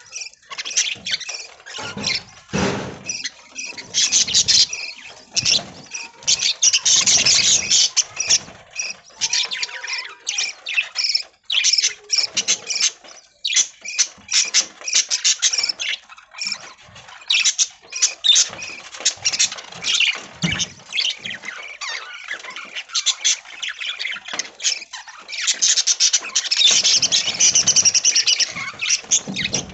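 A flock of budgerigars chirping and chattering, many short high calls overlapping, busiest and loudest near the end.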